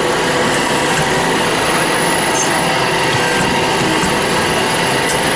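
Band saw running: a steady, loud mechanical noise with a faint steady whine through it and a few sharp ticks.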